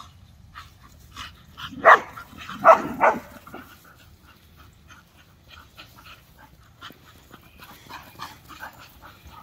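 A dog barks three times in quick succession, about two to three seconds in, followed by fainter short yips.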